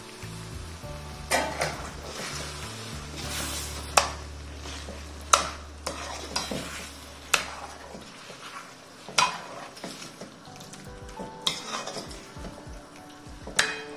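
Metal spoon stirring chickpeas into thick masala gravy in a metal kadai, scraping the pan with sharp clinks against its side every second or two. The gravy sizzles gently underneath.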